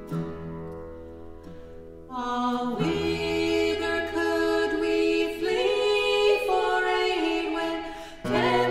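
Unaccompanied women's voices singing a hymn tune in close harmony; the singing grows fuller about two seconds in, and a new phrase begins near the end.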